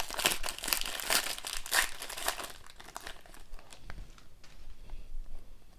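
A trading card pack's wrapper being torn open and crinkled. The crinkling is busiest for the first two seconds or so, then thins to fainter scattered crinkles and ticks.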